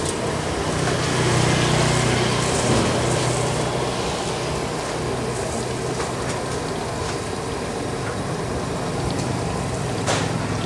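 A motor engine running steadily with a low hum, louder for a couple of seconds near the start, over the hiss of oil frying in a wok. A single sharp click comes near the end.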